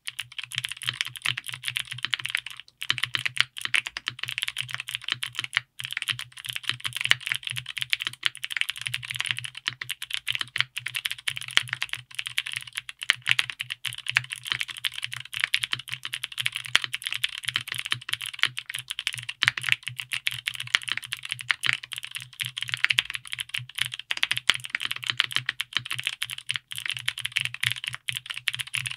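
Owlab Vento 80 gasket-mount mechanical keyboard with GMK ABS double-shot keycaps being typed on quickly and continuously, a dense run of key presses with only brief pauses, a little under three seconds and again near six seconds in.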